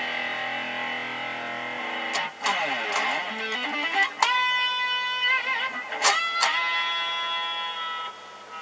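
Electric guitar played through a Duncan Designed HB-102B humbucker pickup, improvising: a chord rings for about two seconds, then a quick run of notes, then struck notes held with vibrato.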